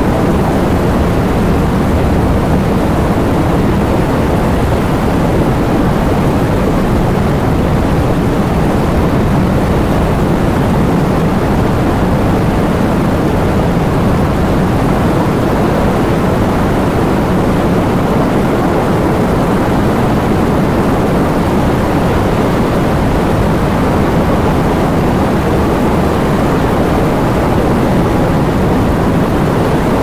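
Heavy rain falling in a steady, unbroken downpour: a dense, even rush with most of its weight in the low and middle range and no separate drops standing out.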